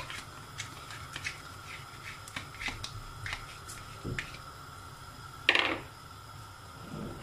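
Light clicks and taps as the last grains of washed rice are knocked from a plastic bowl into a pot of boiling water, over a faint steady hum. About five and a half seconds in there is one short, louder clatter.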